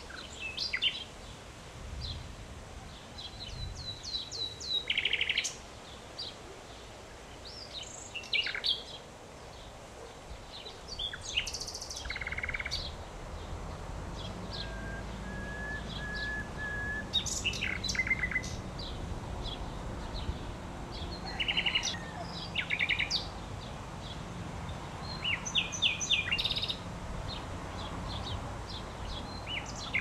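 Common nightingale singing: varied phrases separated by short pauses, with rapid rattling trills, quick runs of repeated notes and, near the middle, a short series of soft pure whistles.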